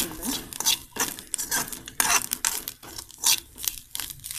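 A spoon scraping and stirring grated coconut, shallots and garlic around an aluminium kadai as they roast, in quick irregular strokes about three a second.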